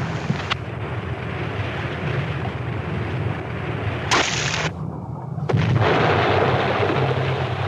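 Depth charges exploding around a submarine as a drama sound effect: a loud, continuous rumbling with a sharp blast about four seconds in.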